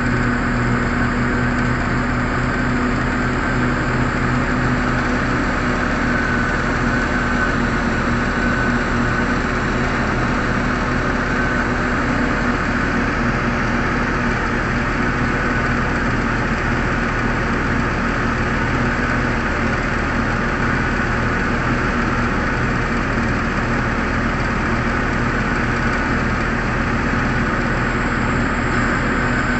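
Heavy diesel engines of a mining excavator and a Cat 777D haul truck running steadily at a constant level, with a thin high whine that comes and goes in the first half.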